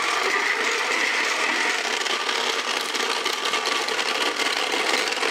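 3D-printed flywheel-powered walking robot running on its stored flywheel energy: the spinning flywheel and its 20-to-1 gear train whir steadily as they drive the legs.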